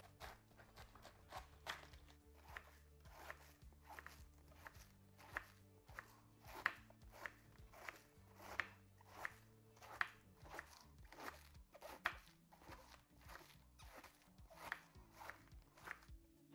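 Chef's knife finely shredding a head of young cabbage on a wooden cutting board: a steady run of crisp slicing chops, about two a second, each blade stroke cutting through the leaves and tapping the board. Faint background music runs underneath.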